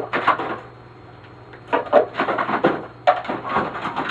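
Hand tools clicking and scraping on a power strip's parts as its brass contact strips are pried out, in three bursts of rapid clicks.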